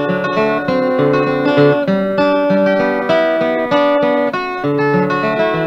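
Acoustic guitar played solo: a picked melody of separate notes with bass notes underneath, in an old-time country blues style.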